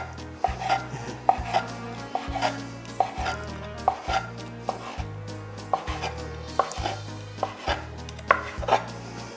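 Kitchen knife chopping through strips of pastry dough onto a wooden cutting board, a steady series of cuts about one a second.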